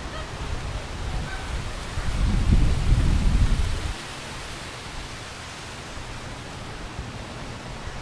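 Steady hiss of wind and waves, with a low gust of wind buffeting the microphone for about two seconds in the middle.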